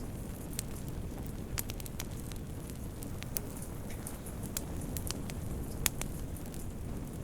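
Wood fire burning in a fireplace: a steady low rumble of flames with scattered sharp crackles and pops at irregular intervals, one louder pop near the end.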